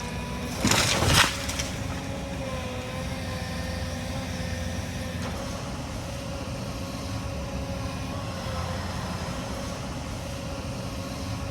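Excavator running steadily with a low drone, and about a second in a short burst of cracking and crashing as a felled tree and its branches come down.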